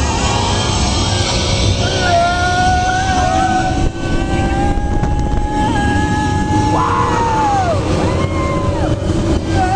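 Wind and tyre rumble of an Epcot Test Track ride vehicle running fast on the outdoor loop. Long high held tones ride on top of it; they slide downward about seven seconds in, then rise and fall again near the end.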